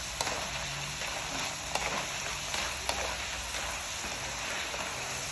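Sliced potatoes sizzling in hot oil in a pan on their second fry for crispness, a steady hiss with a few sharp crackles as a wooden spatula stirs them.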